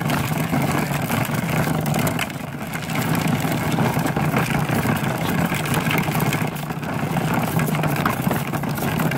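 Hard plastic wheels of a toddler's ride-on toy motorbike rolling downhill over brick paving, a steady rumble.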